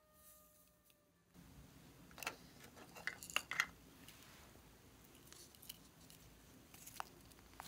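A few short sharp clicks and taps of a small hard plastic container being handled, the loudest bunched about three seconds in, over a faint steady hiss.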